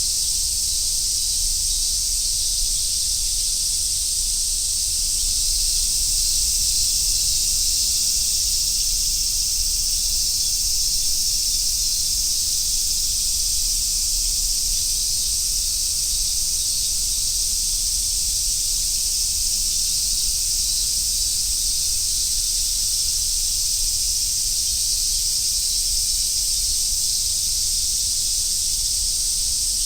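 Chorus of summer cicadas singing together, a dense, steady high-pitched sizzle that holds level without pauses.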